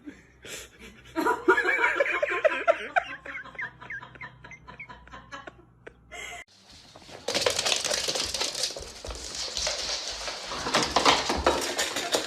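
A person laughing in quick repeated bursts. Then, after a cut, a steady clatter of many small knocks and rattles.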